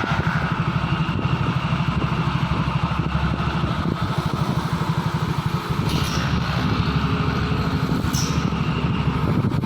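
Dump truck's diesel engine running steadily, a rapid even low pulse, with two brief high squeaks about six and eight seconds in.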